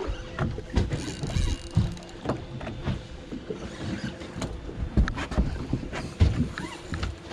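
Wind and water noise aboard a small fishing boat at sea, full of irregular sharp knocks and clicks and low thumps, over a faint steady hum.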